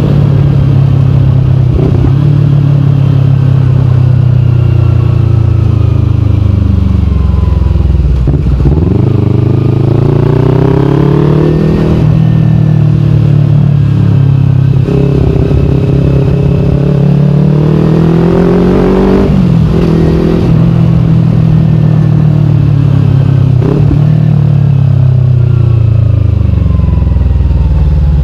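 Kawasaki Ninja 250fi parallel-twin engine running through a KP16 aftermarket exhaust while riding. It revs up twice, each time dropping sharply at a gear change, with steadier stretches and falling revs in between as the bike slows near the end.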